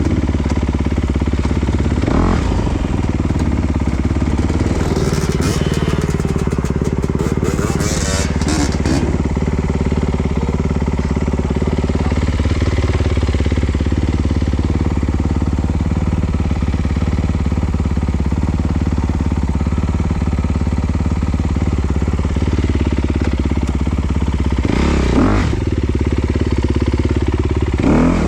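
Off-road trail motorcycle engine running steadily. Clattering between about five and nine seconds in, and short knocks near the end.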